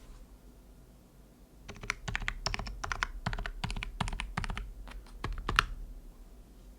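Typing on a Mode65 mechanical keyboard with hand-lubed TTC Bluish White switches on an aluminum plate, under GMK keycaps, with bottom-out dampened switches and foam and tape mods. A quick run of keystrokes starts a couple of seconds in and stops near the end, and one louder stroke comes just before it stops.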